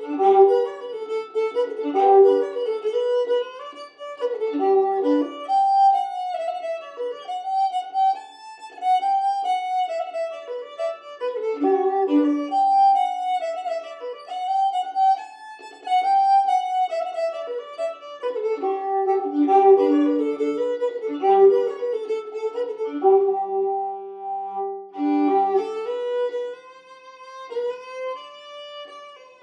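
Instrumental background music with a flowing melody line over a light accompaniment, held on a long note about three quarters of the way through.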